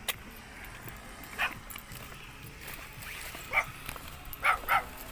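A dog barking four times, with the last two barks close together.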